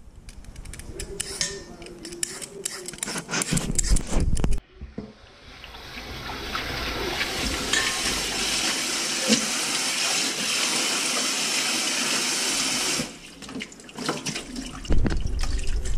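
A vegetable peeler scraping strips off a burdock root into a steel bowl, a run of short scrapes and clicks. About five seconds in this gives way to a kitchen tap running steadily onto shredded burdock in a stainless sink for about eight seconds, followed by irregular splashing and handling noises.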